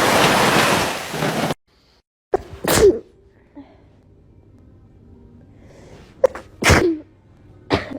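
Steady wind-and-surf rush that cuts off abruptly about a second and a half in, then two loud, sharp sneezes about four seconds apart, with a smaller burst just after the second.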